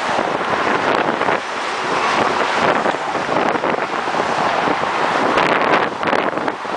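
Wind buffeting the microphone over the steady noise of car traffic passing close by in the adjacent lanes.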